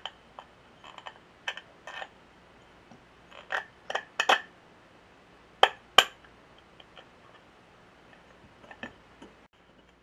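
Small metal muffler parts clinking: a thin hand tool tapping and scraping against a steel muffler ring, in scattered sharp clinks with a short ring. The loudest two come close together about six seconds in, and only a few faint ones follow.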